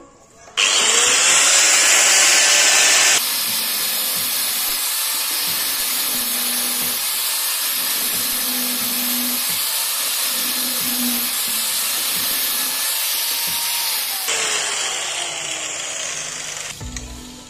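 Handheld angle grinder starting up and spinning free, then cutting through an aluminium rolling pin for about eleven seconds. After that it spins down with a falling whine and stops near the end.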